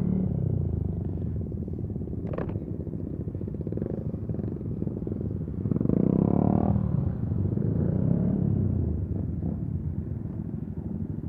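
Motorcycle engine running while riding, a steady rumble. About six seconds in it grows louder for about a second, with the engine note rising and falling.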